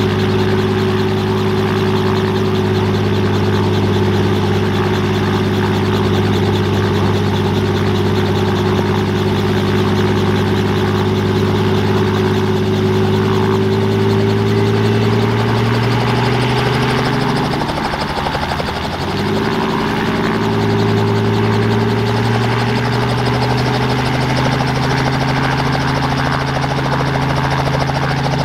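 Robinson R44 Clipper II helicopter running on the ground with its main rotor turning. Its Lycoming IO-540 six-cylinder engine gives a loud, steady hum, which dips briefly about two-thirds of the way through and then carries on.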